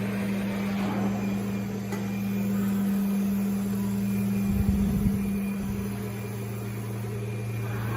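Five-axis CNC router running while it cuts foam, a steady mechanical hum with a brief low rumble about halfway through.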